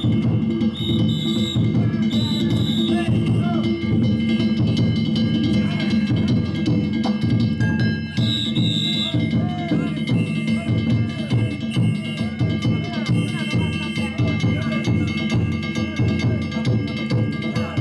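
Danjiri festival ensemble: a big taiko drum beating steadily while metal gongs ring, with crowd voices mixed in. Short high-pitched blasts cut through twice near the start and once about eight seconds in.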